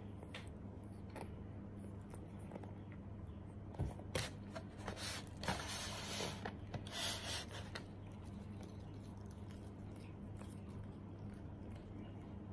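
Cat biting and chewing blades of cat grass: small crisp clicks and tearing, with a louder stretch of rustling and crackling from about four to eight seconds in. A steady low hum runs underneath.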